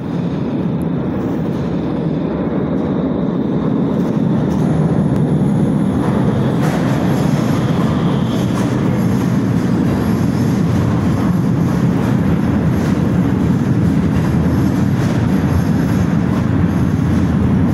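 Vienna U-Bahn U6 train running into an underground station: a steady rumble of wheels on rail that builds over the first few seconds and stays loud as the cars roll past the platform.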